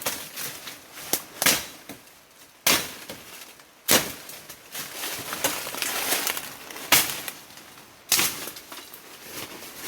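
Irregular crunching and rustling noises, each sudden and short, spaced about a second or more apart, from movement through brush and debris on a track.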